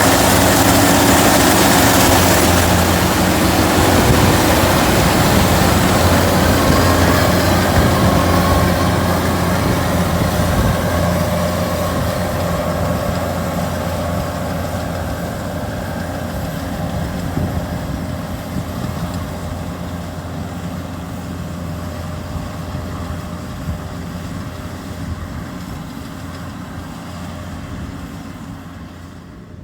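Kubota combine harvester's diesel engine running steadily with a low hum, fading gradually over the stretch.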